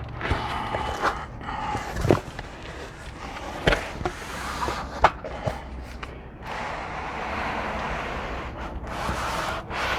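Cardboard box and its foam packing padding being handled while a heavy battery is worked out of the box: a few sharp knocks in the first half, then a steady rubbing, rustling noise for the last few seconds.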